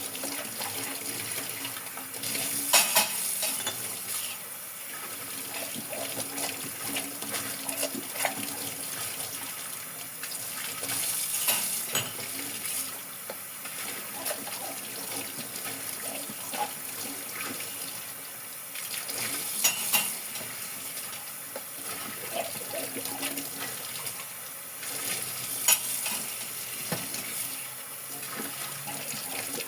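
Dishes being washed by hand under a running kitchen tap: a steady flow of water with scattered clinks of dishes and cutlery, and four louder swells of splashing.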